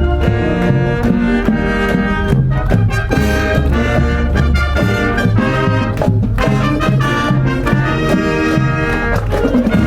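A high-school wind and marching band playing live, with brass (trumpets and trombones) over a strong bass line and drums keeping a steady beat.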